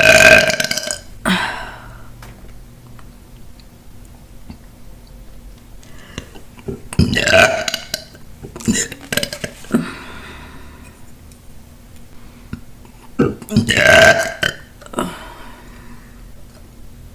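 A woman burping loudly several times: long burps at the start, about seven seconds in and about fourteen seconds in, with shorter burps between them.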